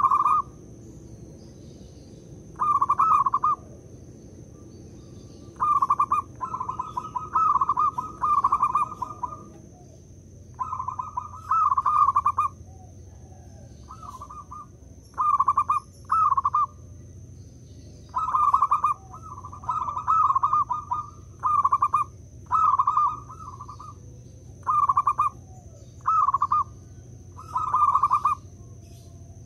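Zebra dove (perkutut) cooing: repeated phrases of rapid, rolling notes, each lasting about a second, coming every second or two. A faint steady high whine runs underneath.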